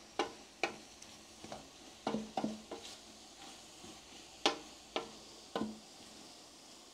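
Wooden spoon stirring a vegetable sofrito in a large aluminium stockpot: irregular knocks and scrapes of the spoon against the pot, about nine in all, over a faint sizzle of the sofrito frying on low heat.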